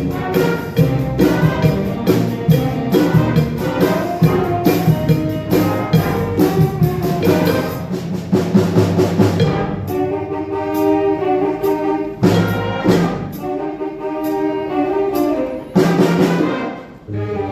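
A high school band playing live with brass to the fore: a busy, steady beat for the first half, then sustained brass chords punctuated by a couple of accented full-band hits.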